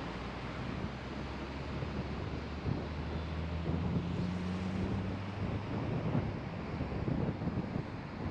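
Car driving on a road, its engine running with a steady low drone over tyre and wind noise. The engine tone drops away about five seconds in, leaving a rumble of road and wind noise.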